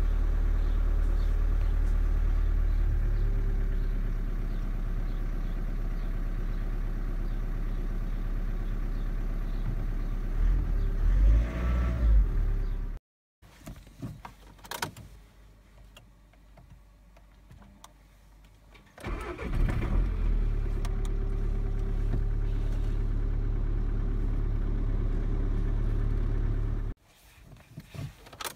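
VW Golf 6 1.6 TDI four-cylinder turbodiesel idling steadily on a cold start in sub-zero weather, with a few seconds of louder, uneven running before it cuts off. After a quiet stretch with light clicks, the diesel cranks and catches about two-thirds of the way through, then settles to a steady cold idle. It stops abruptly near the end, leaving a few faint clicks.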